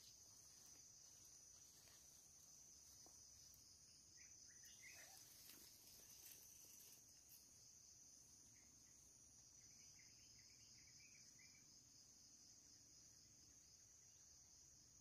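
Near silence over a faint, steady high-pitched insect drone, like crickets or cicadas, with a few faint chirps about four seconds in and again around ten seconds in.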